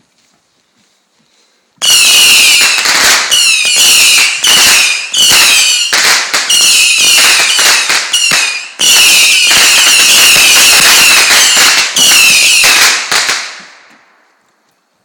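A lit consumer firework going off: loud hissing crackle with a high whistle, in a string of bursts with short breaks. It starts about two seconds in and dies away near the end.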